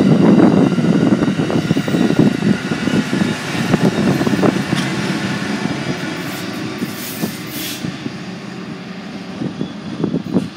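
Amtrak California passenger train of bilevel coaches passing close by, its wheels clattering over the rail joints in a dense rumble. The Siemens Charger diesel-electric locomotive goes by about six seconds in, and the sound then eases off.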